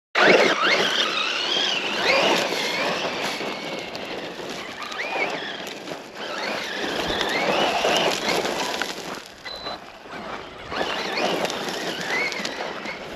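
Losi Lasernut RC truck's 1900 kV brushless motor whining, its pitch rising and falling repeatedly as the truck speeds up and slows, over a rough scuffing noise of the tyres on the ground.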